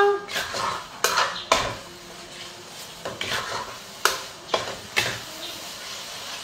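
Kitchen clatter of utensils on cookware: several sharp clinks and knocks, irregular and roughly a second apart, over a faint hiss.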